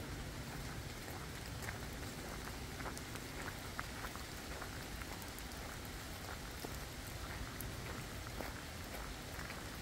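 Steady rain falling in a forest, with many single drops landing close by as short, sharp ticks.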